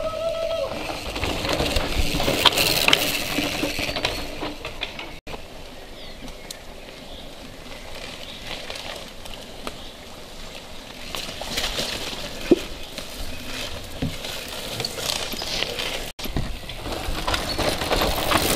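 Cross-country mountain bikes passing on a forest dirt trail: knobby tyres crunching over dirt, roots and mud, with chains and drivetrains clicking and rattling, and one sharp knock about halfway through. The sound breaks off abruptly twice where shots are cut together.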